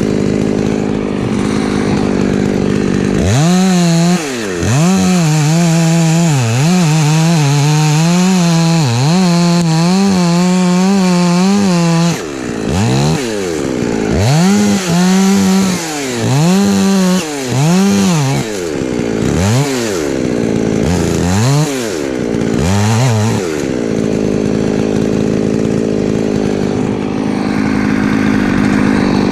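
Husqvarna 254 two-stroke chainsaw revved to full throttle again and again, its note rising and falling in quick surges and held high for a few seconds at a time, over a steadier engine running at an even speed at the start and near the end.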